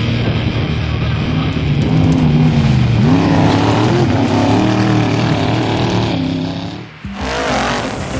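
Trophy truck engine revving hard at racing speed, its pitch rising and falling with the throttle and gear changes. Just before seven seconds in, the sound drops out briefly and comes back with the engine climbing in pitch again.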